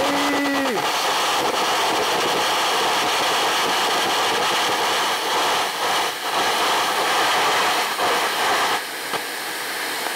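Air carbon arc gouging off a small welder maxed out at 180 amps, DC positive: the arc crackles and hisses steadily while the compressed-air jet blows molten metal out of the gouge. The carbon electrode is bigger than this machine is rated for. The sound eases off a little just under nine seconds in.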